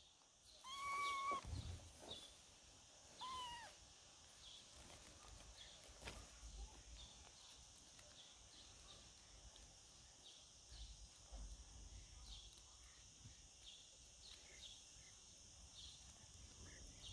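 A very young, hungry tabby kitten meowing twice: a high call about a second in and a shorter falling one about three seconds in. After that only a faint steady hiss with small scattered clicks.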